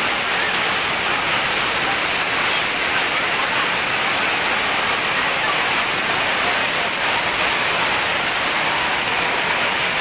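Large monsoon waterfall pouring down a rock cliff: a steady, unbroken rush of falling water.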